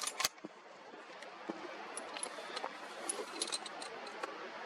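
Two sharp clicks right at the start, then faint, scattered light metallic ticks and clinks over a low steady hiss.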